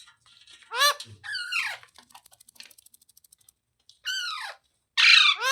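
Indian ringneck parakeet giving loud screeching calls, each rising and falling in pitch, in two pairs: two about a second in and two more near the end, the last the loudest. Faint rapid clicking comes between the pairs.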